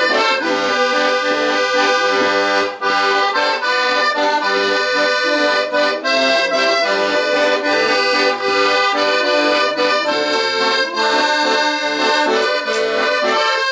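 Accordion playing a traditional tune, held notes and chords shifting in a steady rhythm.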